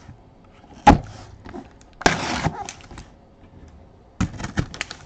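Cardboard box being handled with gloved hands: a sharp knock of the box against the table about a second in, a brief scraping tear of cardboard or tape about two seconds in, then a quick run of taps and rustles near the end.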